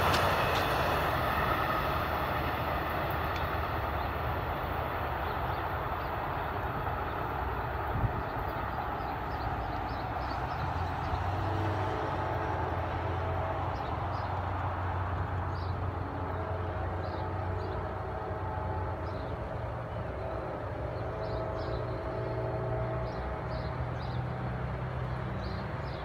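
Amtrak Cardinal passenger train rumbling along the rails, its noise dying away over the first few seconds as it moves off down the line, then settling into a steady low rumble. There is a single sharp knock about eight seconds in.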